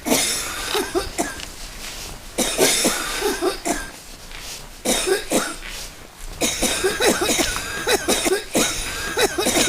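A person coughing in repeated fits: a cluster of harsh coughs at the start, more fits about every two to three seconds, and a longer run of rapid coughs through the second half.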